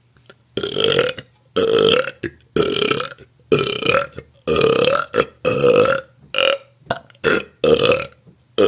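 A woman belching a back-to-back string of loud burps, about ten in a row at roughly one a second.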